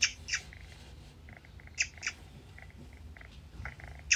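Tabby kitten purring, a steady low rumble, with pairs of short high squeaks coming about every two seconds.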